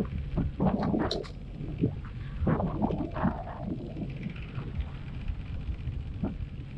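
Wind rumbling on the microphone and choppy water slapping and splashing against a personal watercraft's hull, with irregular bouts of handling noise as a caught halibut is dealt with, strongest about a second in and again around three seconds.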